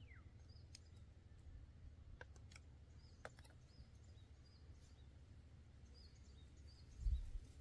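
Very faint outdoor ambience: a low rumble with short, high bird chirps scattered through it and a few faint clicks, then a brief low thump about seven seconds in.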